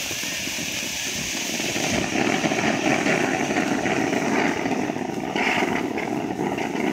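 Shogun 'Zombie' ground fountain firework spraying sparks with a steady rushing hiss that grows louder about two seconds in.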